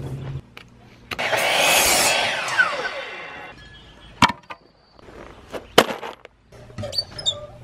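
Wooden boards being handled and set down on the ground: a scraping rush that lasts a couple of seconds, then a few sharp wooden knocks.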